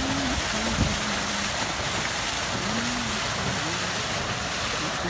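Fountain water spilling over a tiled ledge and splashing into the pool below: a steady rushing splash.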